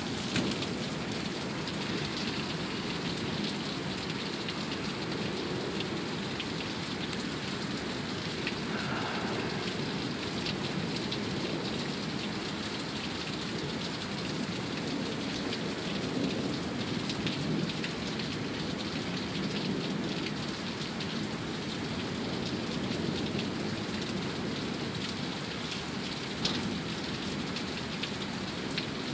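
Heavy downpour: rain pouring steadily as a dense, even hiss, with many sharp ticks of drops striking close by.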